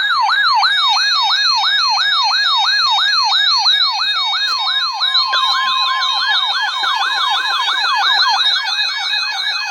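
Electronic siren wailing in fast up-and-down sweeps, about three and a half a second. About five seconds in, a second siren joins out of step with the first, and a steady tone is held for about two seconds.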